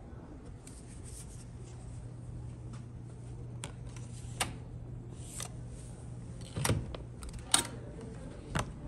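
A steady low hum with a few short, sharp clicks and knocks over it, the loudest about seven and a half seconds in.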